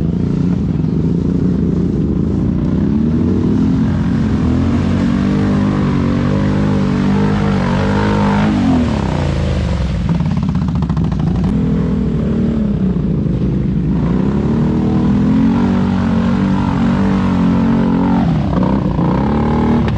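ATV engine running under load along a muddy trail, its revs rising and falling about three times as the throttle is opened and eased off.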